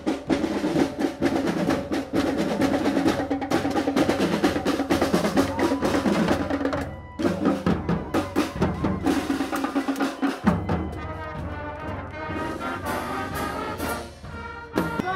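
Youth marching band playing on the march: a drumline of snare and tenor drums with cymbals beating a cadence, with brass horns sounding over it. It grows quieter after about ten seconds.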